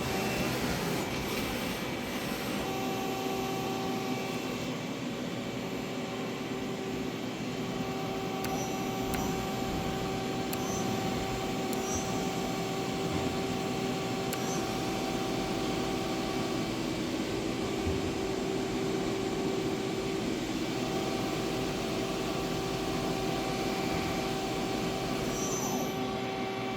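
Hwacheon Hi-Tech 200A CNC lathe running: a steady mechanical whine over a hum and hiss, with a few faint high clicks in the middle.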